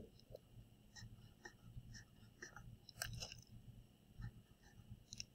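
Faint clicks and scratches of a felt-tip marker being handled and drawn across notebook paper, a little busier about three seconds in.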